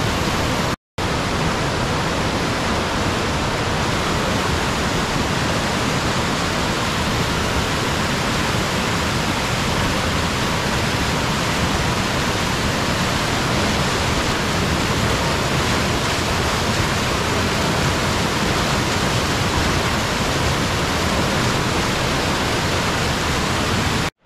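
Floodwater rushing over a waterfall on a flooded creek: a loud, steady roar of water. It drops out for an instant just under a second in and cuts off abruptly near the end.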